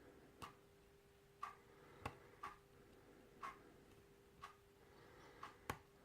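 Quiet room with a clock ticking softly once a second. Two sharper metallic clicks, about two seconds in and near the end, come from a pick and tension wrench working the pins of a spool-pinned challenge lock.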